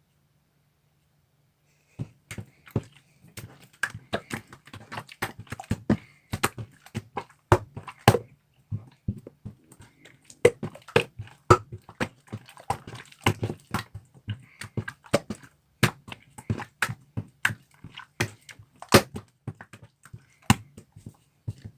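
An irregular run of sharp clicks and taps, several a second, starting about two seconds in after a silent start.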